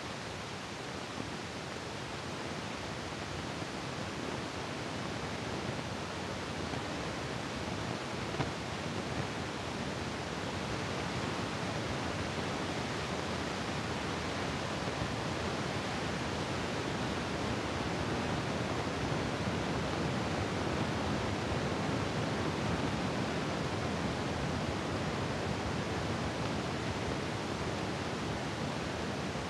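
Heavy rain falling steadily in a storm front's gusty wind, a dense, even hiss that grows somewhat louder over the first ten seconds or so.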